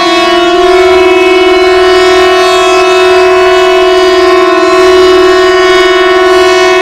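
Loud, steady emergency alert alarm tone held at one unchanging pitch, rich in overtones, in the style of a Norwegian public warning signal.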